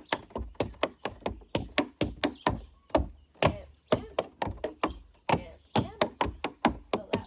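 Tap shoes striking wooden deck boards in quick, uneven clusters of sharp taps, heel and toe beats of a tap routine danced with no music.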